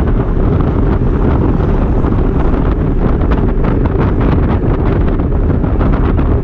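Wind buffeting the microphone of a camera on a moving road bike riding into a headwind: a loud, steady rumble with frequent short crackles.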